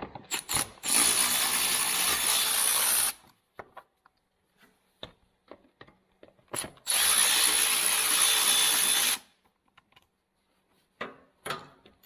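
Cordless power driver with an 8 mm socket running in two bursts of about two seconds each, backing out the air-box screws on a Kubota BX23s tractor, with short clicks of handling between them.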